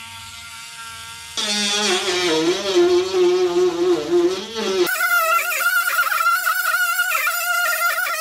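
Dremel rotary tool running at high speed, grinding to open up a horn mounting hole. It starts with a steady whine, then grows louder about a second and a half in with its pitch wavering as the bit bites, and shifts abruptly again about five seconds in.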